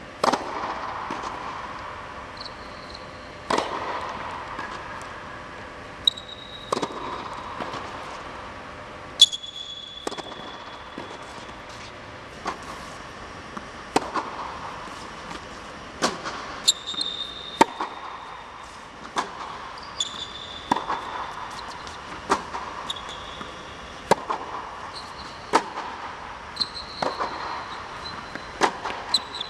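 Tennis racket hitting the ball and the ball bouncing on an indoor hard court, a crisp impact every one to two seconds, coming faster in the second half, each hit echoing in the big dome hall. Short high squeaks of tennis shoes on the court come between the hits.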